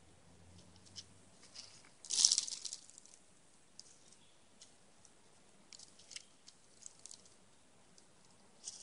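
Eastern gray squirrel feeding on birdseed close to the microphone: scattered small clicks and crunches of seed, with a louder scrabbling rustle of seed about two seconds in.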